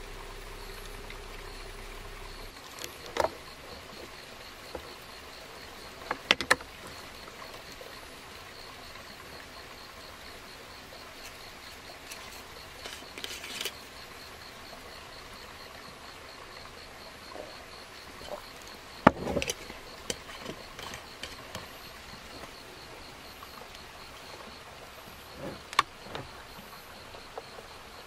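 Small clicks and knocks of chopsticks and tableware on a plastic electric lunch-box cooker and a wooden shelf, with a short rustling scrape around the middle as an aluminium bottle's screw cap is opened. The loudest knock comes a little past two-thirds through. Behind it, insects chirp steadily at a high pitch, and a low hum stops about two seconds in.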